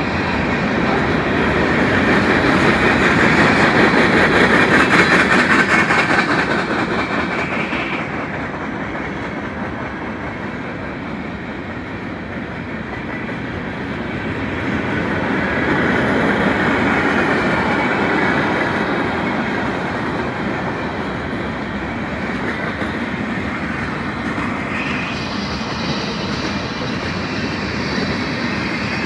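Freight train cars passing fast: a steady rushing rumble with wheels clattering over the rail joints. The sound swells in the first few seconds, eases about twelve seconds in, and swells again a few seconds later.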